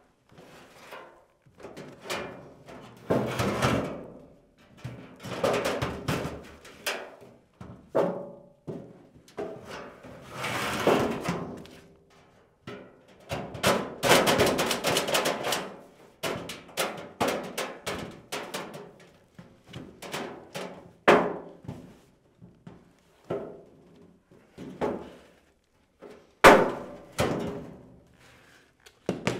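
Galvanized sheet metal plenum rattling and clanking in irregular bursts as its flanges are bent out by hand with a pocket brake. One sharp metal clank comes about three seconds before the end.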